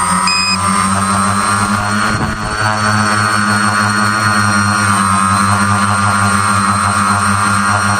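Tricopter's electric motors and propellers running at lift-off power, a steady multi-toned whine and hum after spinning up, picked up by the camera mounted on the craft. A short high beep sounds just after the start.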